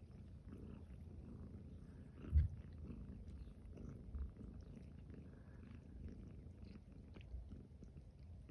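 Five-day-old kitten purring quietly, a low steady pulsing hum, with one soft thump about two and a half seconds in.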